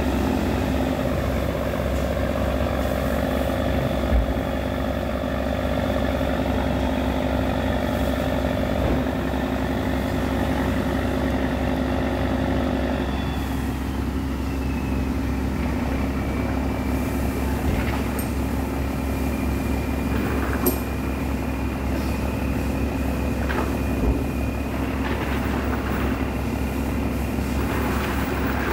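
A fishing boat's engine running steadily, its note dropping slightly about halfway through, with a few brief knocks over it.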